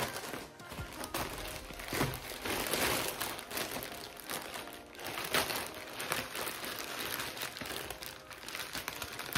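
Thin plastic shipping bag crinkling and rustling in the hands as it is cut open with scissors, and a fishing rod in plastic wrap is pulled out, in an irregular run of crackles.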